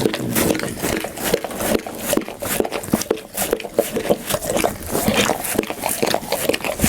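Pit bull chewing food close to the microphone: a steady, irregular run of quick clicks and smacks, several a second.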